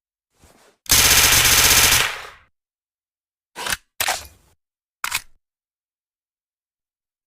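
Suppressed Uzi submachine gun firing one rapid burst of about a second, followed by three short, sharp clacks.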